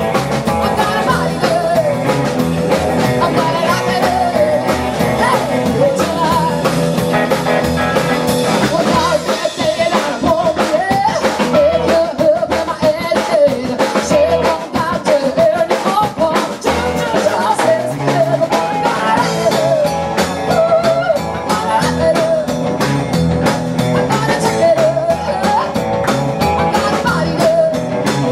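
Live rockabilly band playing: a woman's lead vocal over hollow-body electric guitar, upright double bass and drums.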